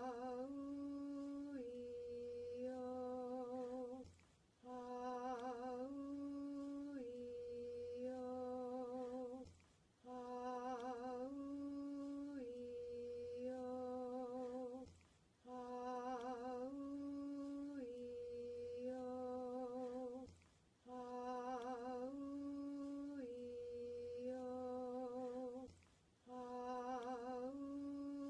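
A single voice chanting the vowel sequence "Ah-oo-ee-oh" as a simple four-note phrase. Each vowel is held about a second, and the second note is a step higher than the rest. The phrase repeats over and over, about every five seconds, with a short gap between repetitions.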